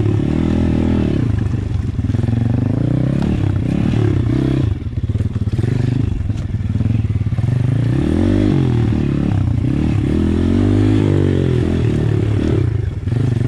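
Apollo RFZ pit bike with a swapped-in 150cc single-cylinder engine, revving up and down as it is ridden along a rough trail, the throttle easing off briefly about five seconds in and again near the end. Knocks and rattles from the bike over the rough ground come through now and then.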